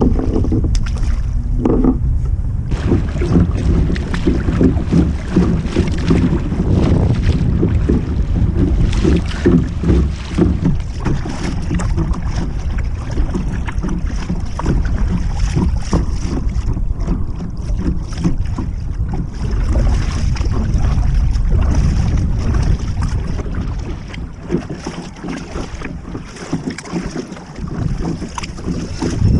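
Strong wind buffeting the microphone in gusts, with water slapping against a kayak's hull. The gusts ease somewhat near the end.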